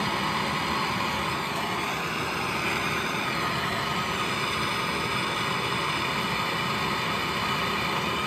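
Handheld gas torch burning with a steady hiss, its blue flame heating a copper pipe elbow joint while solder is fed in. This is the sweating of a copper fitting, with the heat drawing the solder into the joint.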